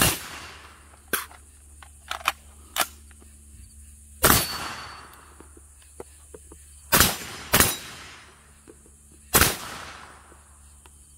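Rifle shots from an 11.5-inch BCM AR-15-type carbine: five shots, one right at the start, one about four seconds in, a quick pair about seven seconds in, and one more near the end, each trailing off in a long echo. Fainter sharp clicks fall between the first shots.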